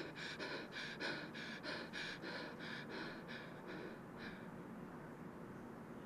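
Quick, gasping breaths in a steady rhythm of about three a second, fading out about four seconds in.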